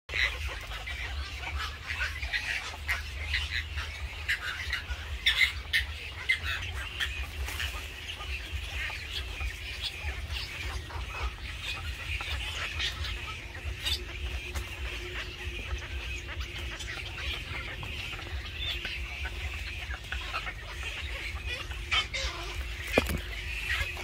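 Wild birds calling and chirping, with short repeated calls, busiest in the first few seconds, over a steady low rumble and a few clicks.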